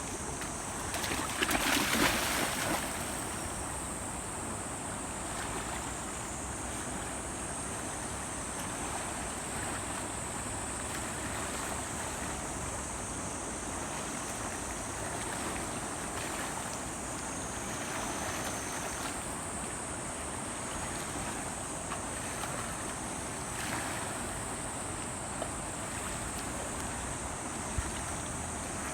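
Steady rushing of a river swollen after a typhoon, with a brief louder burst about two seconds in.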